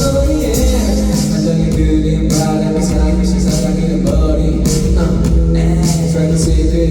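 Live pop music played loud through a concert sound system, with a steady beat, sustained bass notes and a male voice singing.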